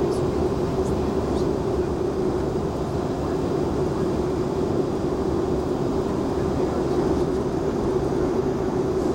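Steady cabin noise of an airliner on approach to landing: a constant drone of engines and rushing air with a steady hum running through it.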